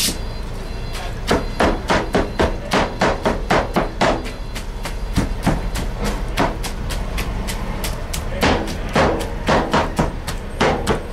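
Blades chopping barbecued meat on a wooden cutting board: rapid, sharp knocks at about four a second, easing off in the middle and then speeding up again near the end.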